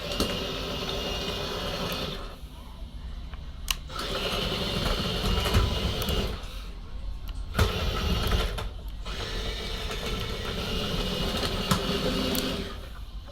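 Motors of a 1/8-scale RC model excavator whining in four bursts, each lasting one to three seconds and stopping and starting again as the machine is worked, with a few sharp clicks in between.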